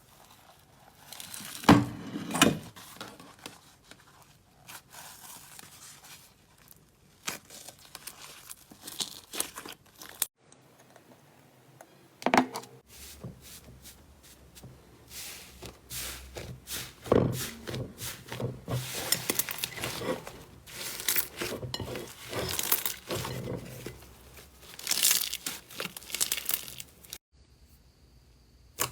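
Slime being pressed, squeezed and stretched by hand, giving irregular crinkling, crackling sounds, in several short clips spliced together.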